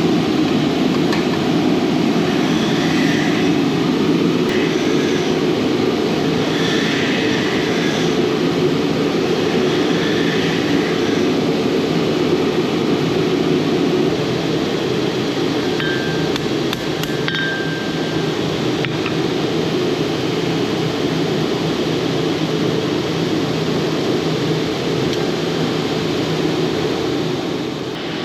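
Metal being hammered at a forge: a series of ringing blows every second or two in the first half, over a steady low running noise that carries on to the end.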